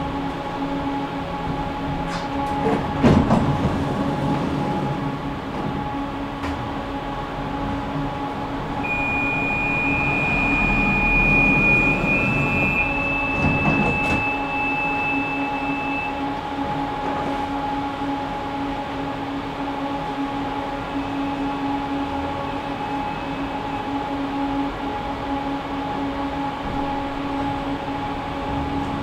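Steady electrical hum of a stationary tram, with a few short clicks and knocks and a thin high whine for a few seconds around the middle.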